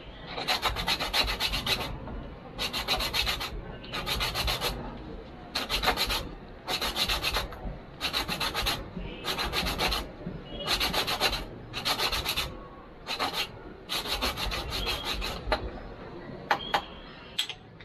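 Sandpaper being rubbed by hand over the rough side of a wooden block to smooth it: quick back-and-forth scratching strokes in about eleven short spells with brief pauses between. The sanding stops a couple of seconds before the end, followed by a few light knocks.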